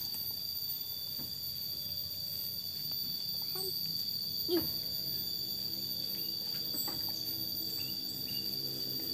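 Steady high-pitched chorus of insects, with a few faint bird chirps and a brief squeak about halfway through. A low hum comes in faintly during the second half.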